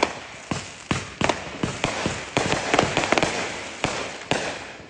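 Aerial fireworks going off overhead: a sharp bang at the start, then a run of irregular cracks and pops over about four seconds that thin out and fade near the end.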